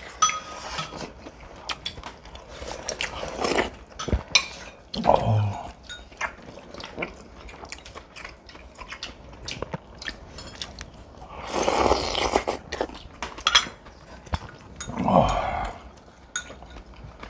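Close-miked eating: chewing and biting into food, with frequent light clicks of metal chopsticks and spoons against dishes and several louder mouthfuls.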